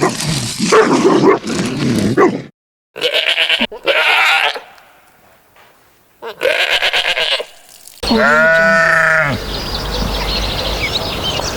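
A farm animal bleating: three separate quavering bleats, the last falling in pitch, after a stretch of other animal sound at the start.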